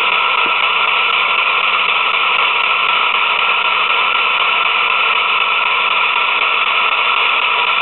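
PSB7 spirit box putting out loud, steady radio static hiss, with no voices coming through.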